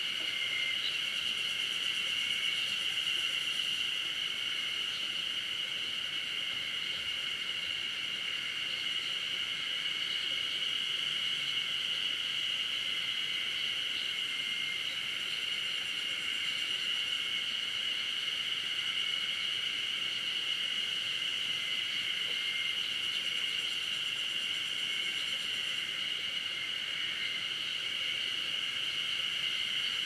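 Forest insect chorus: a steady, unbroken high-pitched drone that holds one level throughout.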